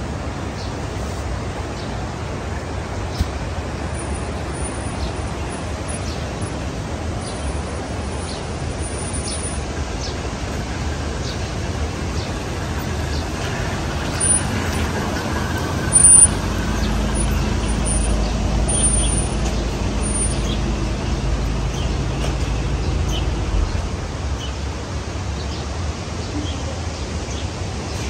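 A motor vehicle's engine running close by with a low hum for about ten seconds midway, over a steady rushing background noise.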